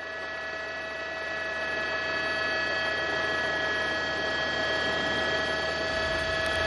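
Steady mechanical hum with several steady tones over a noise haze, growing a little louder in the first seconds, with a low rumble joining near the end.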